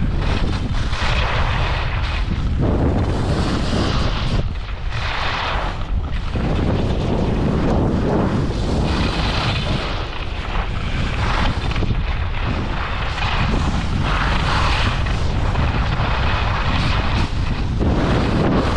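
Wind buffeting the camera microphone during a downhill ski run: a loud, steady low rumble with rushing noise that swells and fades every second or two.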